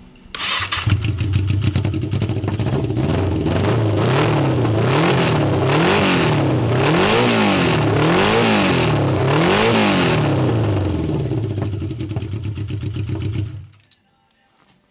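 1982 Yamaha XJ650 Seca's air-cooled inline-four running with no exhaust fitted, open pipes. It comes in suddenly and idles, is revved five times in quick succession, each rev rising and falling in pitch, then settles back to idle and stops about a second before the end.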